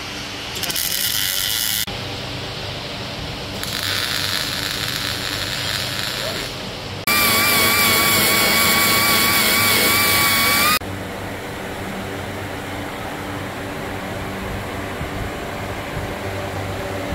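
MIG welder crackling in two short bursts, then an air-powered grinder whining steadily at high speed for about four seconds before cutting off sharply, the loudest sound here. Quieter steady shop noise follows.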